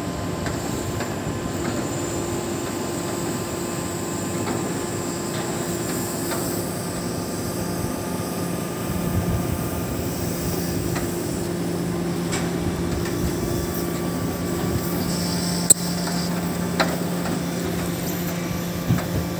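Hydraulic grapple log loader running with a steady motor hum while it moves logs, with a few sharp knocks near the end.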